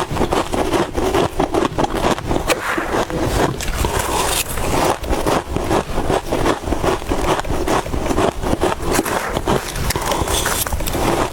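Soft freezer frost being bitten and chewed, a dense, continuous run of crunches.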